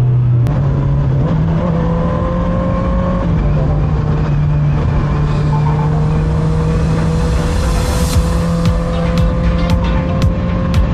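Motorcycle engine running as the rider rides off, its pitch stepping up a couple of times. Wind noise on the microphone builds from about the middle, and short clicks come near the end.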